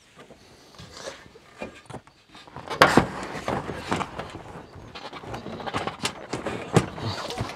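Knocks and clatter of an inflatable boat being handled and shifted on a car roof rack, with rustling. It starts about two and a half seconds in, with sharp knocks about three seconds in and another near the end.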